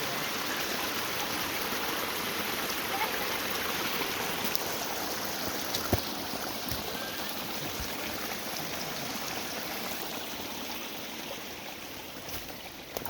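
Steady rush of flowing water from a stream, easing slightly near the end, with a few faint clicks.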